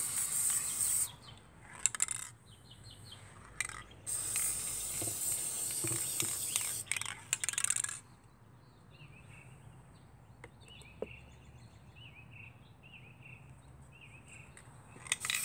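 Aerosol spray-paint can spraying in two long hissing bursts, the first cutting off about a second in and the second running from about four to eight seconds in, with a few sharp clicks between. Birds chirp in the background in the second half.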